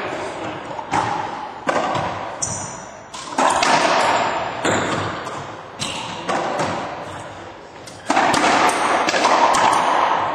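A racquetball rally in an enclosed court: about seven sharp cracks of the hard rubber ball off racquets and walls, each followed by a long echo.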